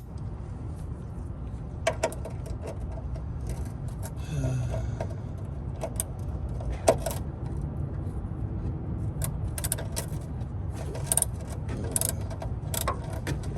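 Irregular metallic clinks, clicks and scrapes of hand tools being handled under the car at the start of an oil change, loudest about seven seconds in and bunched near the end, over a steady low rumble.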